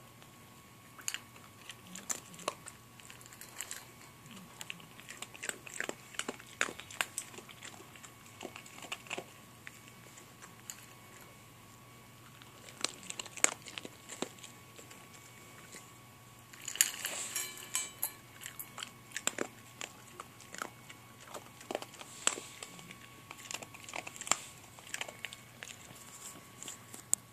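A puppy crunching dry kibble from a metal bowl: irregular crunches and bites, with a busier, louder stretch of clatter about two-thirds of the way through.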